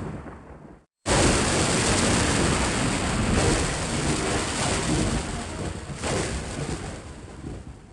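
Thunder sound effects: a rolling rumble fades out in the first second and cuts to dead silence. A new thunderclap breaks in abruptly just after a second and rolls on, slowly dying away near the end.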